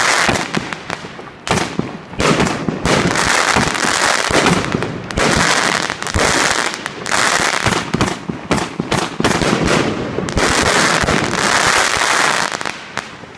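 A 160-shot consumer fireworks cake firing: dense cracks and pops with repeated swells of hissing crackle every second or two, dying down near the end.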